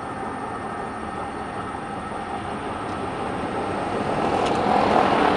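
Electric-converted 2003 Chevrolet Silverado pickup driving at highway speed, heard from inside the cab: steady road and wind noise with no combustion engine running, growing louder about four seconds in.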